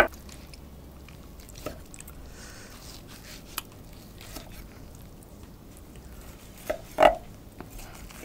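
Chef's knife slicing grilled wagyu picanha steak on a wooden cutting board: quiet cutting sounds, with a sharp click right at the start and a louder knock about seven seconds in.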